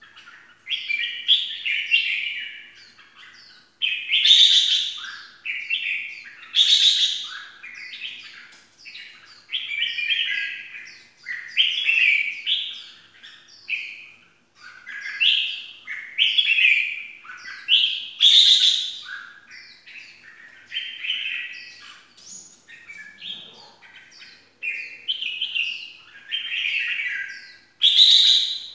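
Red-whiskered bulbul singing: short, bright warbled phrases, one after another every second or two, a few of them louder than the rest.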